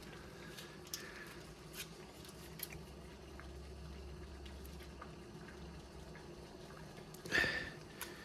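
Light handling noises from ration food packets: a few soft clicks over a faint steady hum, then a short rustle a little after seven seconds in.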